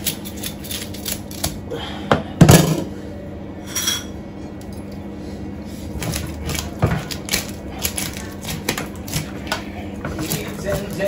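Scales being scraped off a large fish: a quick run of sharp, irregular scrapes and clicks, with one louder knock about two and a half seconds in. The scales are tough and hard to remove.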